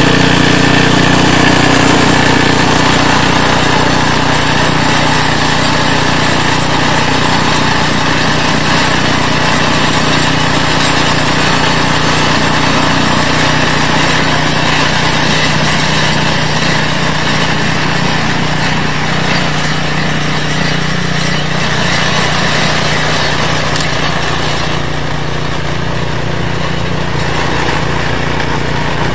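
REDVERG RD-SB60/950BS-E two-stage snowblower's small gasoline engine running steadily under load, its auger driving into the snow near the end.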